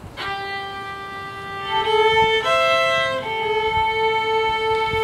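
A violin starts up and plays a slow melody of long held notes, stepping up in pitch and back down again.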